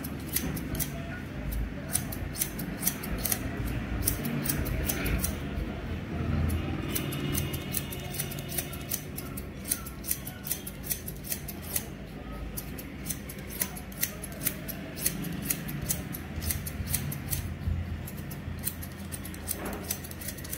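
Barber's scissors snipping hair held on a comb: a steady run of crisp snips, a few a second, with short pauses between passes.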